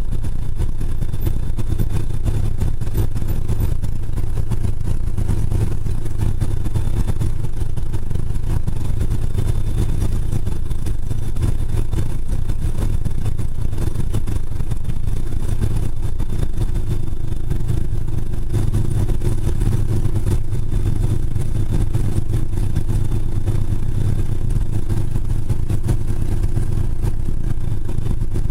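Cessna 206's six-cylinder piston engine and propeller running while the plane taxis, heard inside the cabin as a steady low drone that strengthens slightly about two-thirds of the way through.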